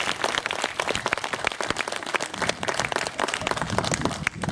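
Audience applauding, many hands clapping irregularly and densely.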